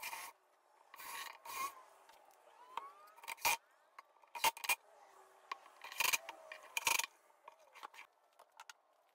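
Cordless impact driver run in short bursts, driving screws through a plywood drawer front from inside the drawer, with sharp knocks between the bursts.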